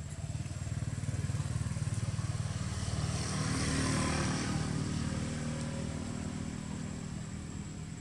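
Engine of a passing motor vehicle running steadily, growing louder to a peak about four seconds in and then fading.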